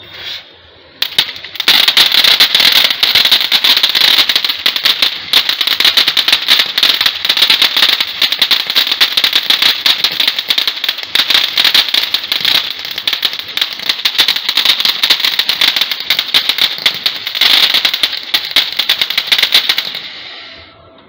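A fountain firework catches with a brief fizz, then about a second later bursts into a loud, continuous crackling hiss full of rapid pops as it sprays sparks. It fades out near the end as the fountain burns down.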